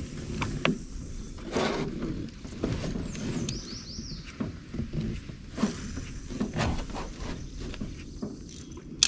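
Irregular knocks, clicks and creaks of fishing tackle against a small aluminum boat as a spinning rod is cast and a swimbait is reeled in. A brief squeak rises and falls about three and a half seconds in.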